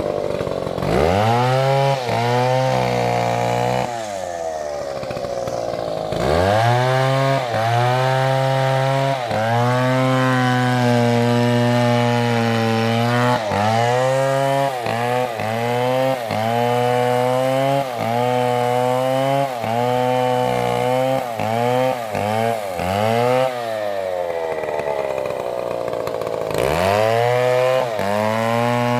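Stihl MS720 two-stroke chainsaw revved to full throttle and cutting wood. Its engine note rises, then sags and recovers over and over as the chain bites. It drops back to idle briefly around four seconds in and again near the end, then revs up once more.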